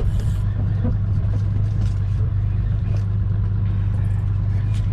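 Boat's outboard engine running with a steady low drone, a few faint ticks over it.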